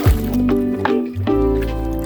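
Background music with held bass notes, opening with a quick falling sweep.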